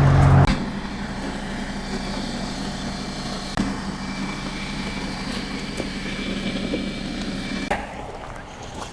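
Steady mechanical hum with a few light knocks. The hum cuts off about a second before the end.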